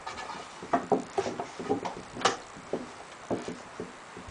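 Wooden pallet boards knocking and clattering as they are handled and set in place, a string of irregular knocks with the sharpest a little past two seconds in.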